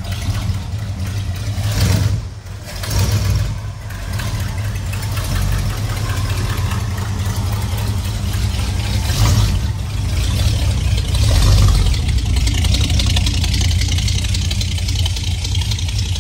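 An old pickup truck's engine idling steadily, with a few brief swells of noise over it.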